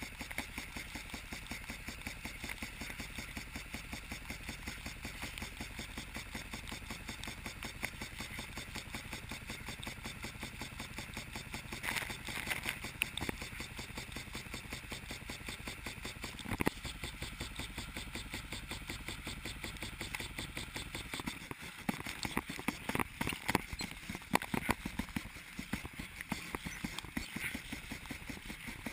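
Lawn sprinkler spraying with a fast, even pulsing, water spattering onto the camera. Louder irregular splashes and knocks come in about midway and crowd together in the last third, as a dog snaps and bites at the spray right beside the camera.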